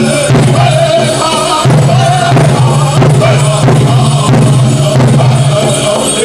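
Powwow drum group singing a chicken dance song over a steady, even beat on a big drum.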